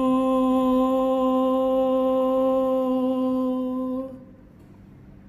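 A man's voice singing one long held note, unaccompanied, scooping up slightly into the pitch and then stopping about four seconds in. The backing track is heard only in his headphones, so only the bare voice is picked up.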